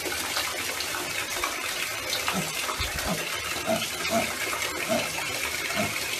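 Steady rush of running water, like a tap filling a bathtub, with a piglet's short soft grunts about twice a second starting around the middle.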